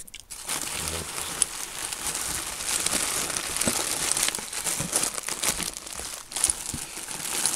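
Pink bubble wrap and a plastic bag crinkling as they are unwrapped by hand: a dense, steady rustle with a few sharper crackles.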